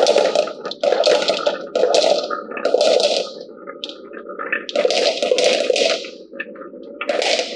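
Marbles rolling and clattering down a wooden HABA marble run: a continuous rolling rumble with a string of rattling bursts, one every half second to a second, and a quieter stretch about two-thirds of the way through.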